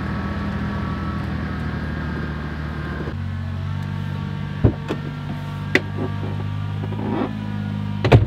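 Steady engine drone of the vehicle towing a dead-engined Dodge Caravan minivan, heard from inside the van's cabin, its note shifting about three seconds in, over the scraping of the van's locked rear wheels skidding along the ground. A few sharp knocks and clicks come from the van partway through and near the end.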